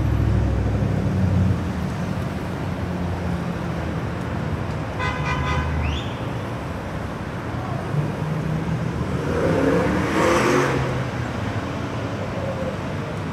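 Street traffic: vehicles running and passing, with a low rumble early on and one car passing closer about ten seconds in. A brief high pitched tone with a short upward glide sounds about five seconds in.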